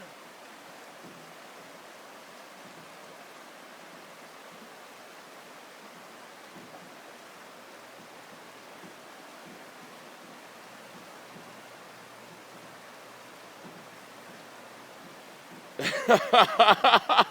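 Steady rushing of a river in flood. A loud voice breaks in near the end.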